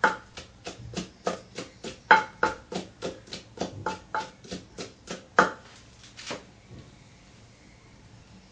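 Pestle pounding chili in a mortar, about four steady strikes a second, stopping about six seconds in.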